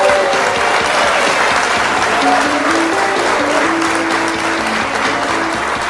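Audience applauding over the instrumental intro of a song played through a PA, with held melody notes under the clapping.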